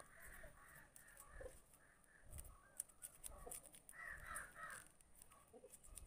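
Near silence: faint snips of small scissors cutting a coconut leaf strip, with a few faint bird calls about four seconds in.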